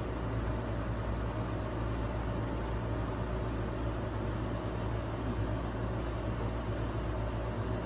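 A steady low hum with a constant hiss over it, unchanging throughout, with no distinct events standing out.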